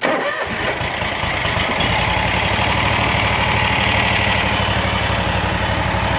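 Kawasaki FX801 V-twin engine of a Kubota zero-turn mower cranking with the choke on and catching within about half a second. It then settles into a steady low idle with an even beat.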